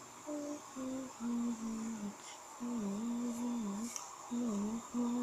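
A person humming a tune with closed lips: a string of held notes, a few stepping down in pitch at first, then longer notes with small dips, broken by short pauses.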